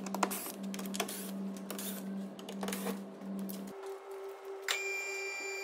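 Milwaukee 3/8-inch cordless impact driver spinning in short runs with clicks between them while it backs out the T20 Torx screws across the front of the bumper. After about four seconds it gives way to a higher steady tone, then a cluster of steady electronic-sounding tones.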